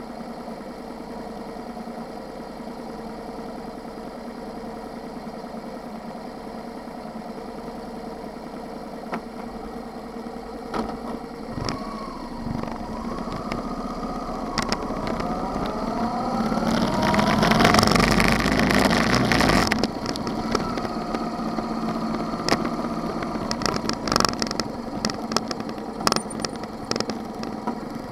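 Motorcycle engine idling steadily, then pulling away and accelerating with rising engine pitch. It is loudest about two-thirds of the way in, then settles into steady riding with scattered sharp clicks.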